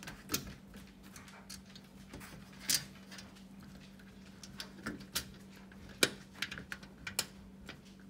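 Small metallic clicks and taps of a washer and nut being fitted and hand-threaded onto a screw at the corner joint of a steel table frame, with sharper clicks about a third of a second in, near three seconds, at six seconds and near seven seconds. A faint steady low hum sits beneath.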